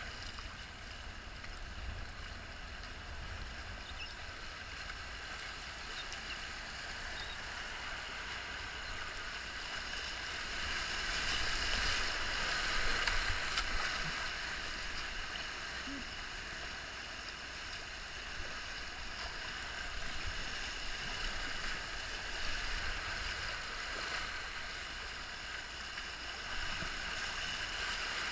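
River rapids rushing and splashing around a kayak as it runs them, over a steady low rumble. The rush swells about halfway through as the boat passes through the biggest waves, then eases again.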